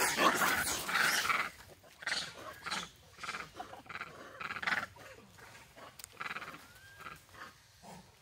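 Macaques giving harsh, bark-like calls in a quick run, loudest in the first second and a half, then thinning out into scattered shorter calls that fade away.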